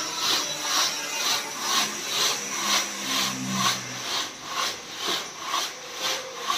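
Sand being sifted through a large hand-held mesh sieve shaken back and forth by two people. Each stroke gives a gritty swish of sand pouring through the mesh, with rubble rattling on the screen, about two strokes a second in a steady rhythm.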